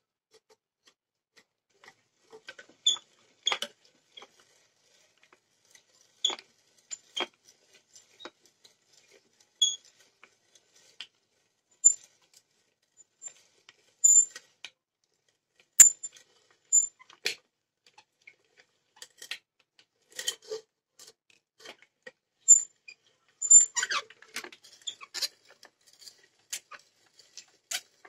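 Antique auger bit in a hand brace boring into hardwood: short, sharp high-pitched clicks and squeaks at irregular intervals as the bit's cutters bite and the wood fibres tear. They come thicker near the end.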